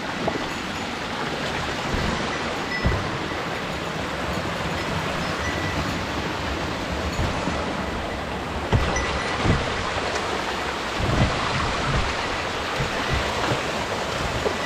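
Rushing mountain-stream water, a steady hiss, with a few dull knocks from about the middle on.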